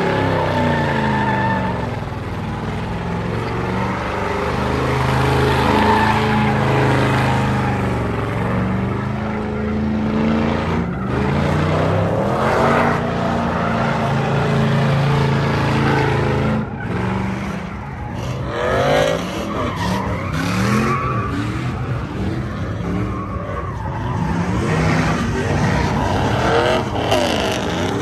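Pickup trucks doing burnouts: engines held at high revs while the rear tyres spin and squeal on the pavement. In the second half the revs rise and fall repeatedly.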